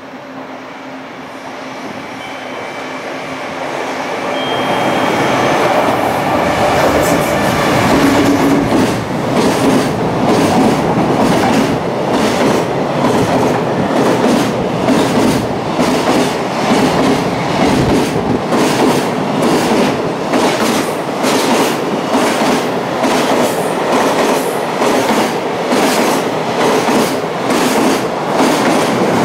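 A high-speed container freight train approaches and runs through the station, its sound building over the first few seconds. A long string of container wagons then passes close by, their wheels clattering over the rail joints in a quick, steady rhythm.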